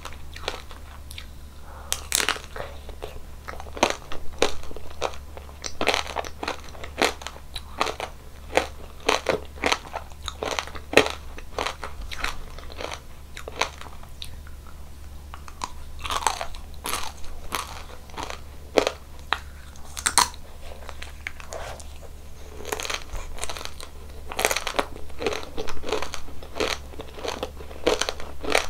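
Crispy frozen ice cream being bitten and chewed, with crunch after crunch of sharp cracks and a brief lull about halfway through.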